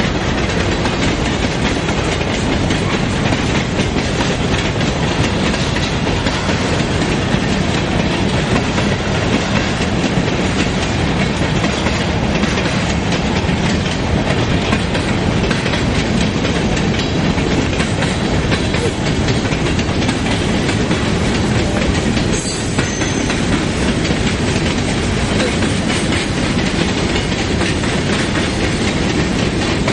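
Freight train cars (boxcars, covered hoppers and autoracks) rolling past, a loud, steady noise of wheels on rail.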